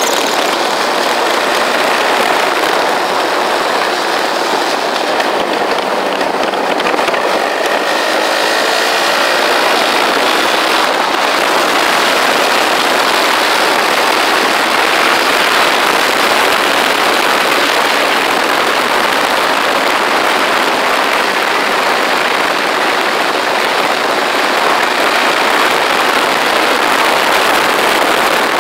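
Motorcycle riding along a road: a steady rush of wind and road noise with the engine running underneath, heard from a handlebar-mounted camera.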